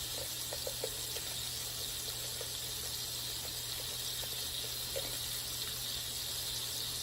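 T-bone steak sizzling in a hot pan: a steady hiss, with a few faint light ticks in the first second.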